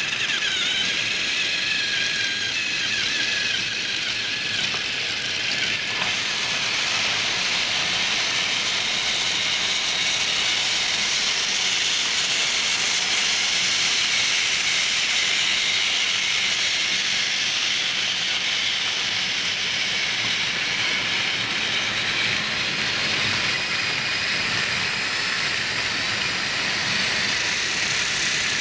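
Motorized toy train engines running on plastic track, a steady whirring hiss of small motors and rolling wheels, with a wavering whine in the first few seconds.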